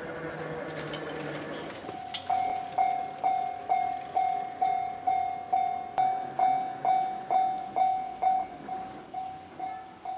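An electric train's motor whine, falling slightly in pitch, for about two seconds. Then a Japanese level crossing's electronic warning bell starts ringing, about two strikes a second, signalling an approaching train.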